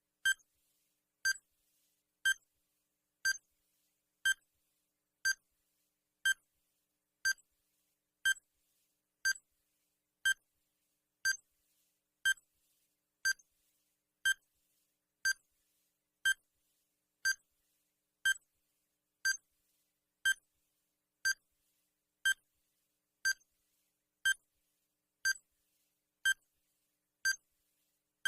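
Digital countdown timer sound effect: one short, high electronic beep each second, marking off the seconds of the countdown.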